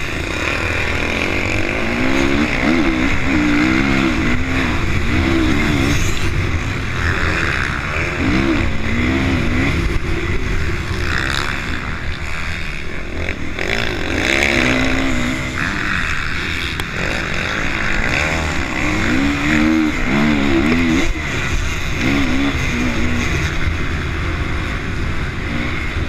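Honda CRF450 motocross bike's single-cylinder four-stroke engine under hard riding, the revs rising and falling over and over as the rider throttles through corners and shifts.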